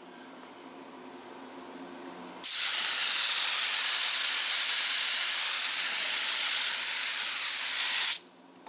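Paint spray gun spraying blue touch-up paint: a loud, steady hiss that starts abruptly with the trigger pulled, holds for about six seconds and cuts off sharply when it is released.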